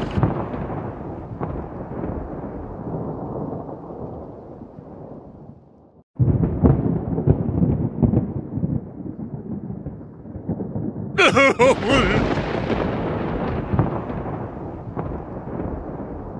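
Two peals of rolling thunder: the first fades away over about six seconds and breaks off, then a second starts suddenly and slowly dies down. A short pitched sound cuts through the second peal about eleven seconds in.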